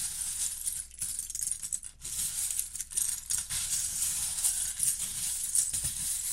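Small plastic Lego pieces rattling, shaken in bursts with brief pauses between them, like a maraca.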